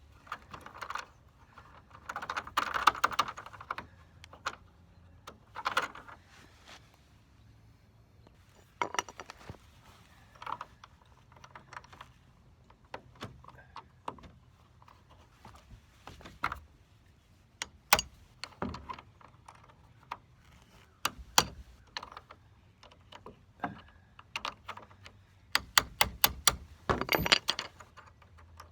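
Scattered clicks, knocks and short scraping bursts of hand tools working a worn dresser caster wheel loose, with a quick run of clicks near the end.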